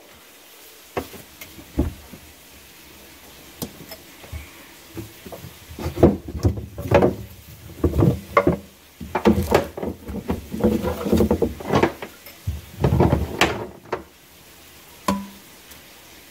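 Irregular knocks, clunks and rattles of parts and tools being handled during hand work on a jet ski engine. A few scattered clicks at first, then a busy flurry of clatter through the middle and latter part that settles down near the end.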